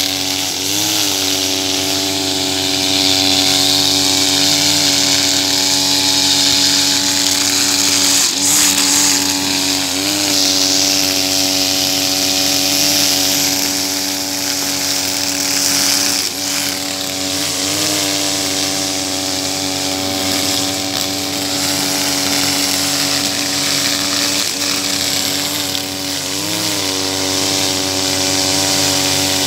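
Husqvarna 542RBS backpack brush cutter's 42cc two-stroke engine running at high revs while its 2.4 mm square trimmer line cuts through thick grass, with a steady hiss. The engine note dips briefly and comes back up several times.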